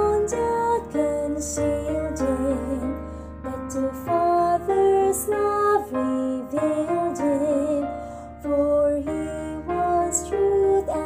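Music: a slow, gentle song with a singing voice over keyboard accompaniment.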